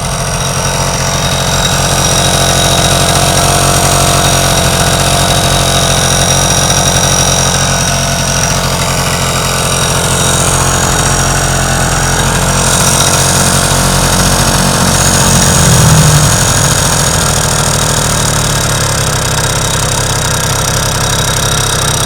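1960 NSU Quickly S moped's 49cc single-cylinder two-stroke engine, fitted with a high-compression head, running steadily and sounding sweet enough. Its revs climb to a peak about 16 seconds in, then ease back down; the owner thinks the timing probably needs setting up.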